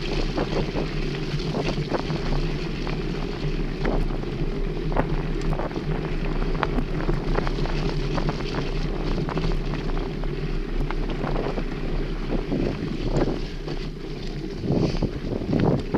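Wind buffeting a handlebar-mounted camera's microphone over the steady rumble of mountain-bike tyres rolling on a dirt forest trail, with frequent small clicks and rattles from the bike over bumps; the knocks come thicker near the end.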